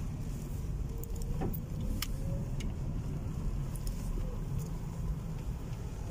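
Car engine running and tyres rolling at low speed, heard from inside the cabin as a steady low rumble, with a few light clicks.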